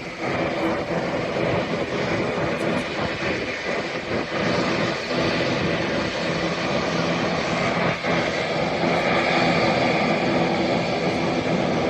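Jet airliner engines running steadily: a dense rush with several steady humming tones, swelling a little in the last few seconds.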